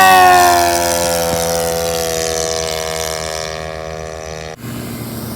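Model D.520 RC airplane's motor and propeller passing by: a loud whine that drops in pitch as it passes, then holds steady while fading as the plane flies away. The sound cuts off suddenly about four and a half seconds in.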